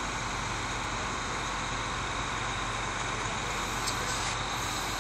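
Truck-mounted crane's engine running steadily, powering the hoist as a cut trunk section is lifted.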